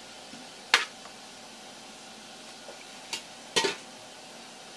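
A wooden spatula knocking against a metal pot and a plastic container while simmered clams are scraped out: one sharp knock just under a second in, then two more close together a little past three seconds, over a faint steady hiss.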